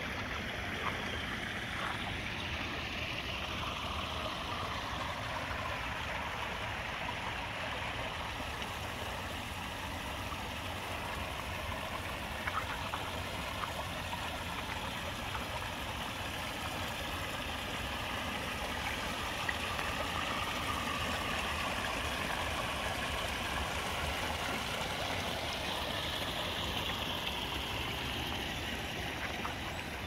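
Koi pond stream and small waterfall running steadily, an even rush of splashing water that grows a little louder in the second half.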